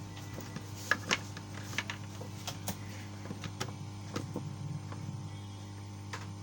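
Scattered light clicks and taps of hands handling laptop parts and connecting a power lead, over a steady low electrical mains hum.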